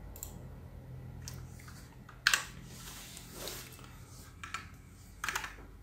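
Sparse computer keyboard keystrokes, single taps spaced a second or so apart, the loudest just over two seconds in and a quick few together near the end, over a faint steady low hum.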